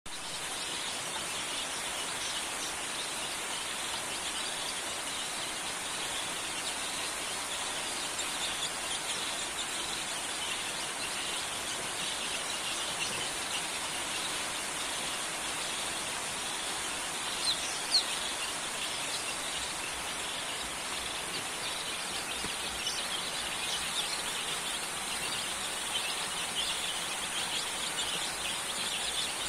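A brood of native chicken chicks peeping, many high cheeps overlapping without pause over a steady high hiss, with one louder chirp about 18 seconds in.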